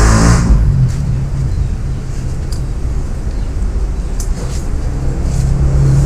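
Steady low mechanical hum, with a brief hiss at the start and a few light clicks later on.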